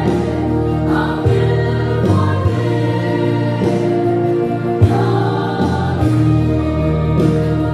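A mixed choir of women and men singing a hymn in Mizo, in harmony, with long held notes.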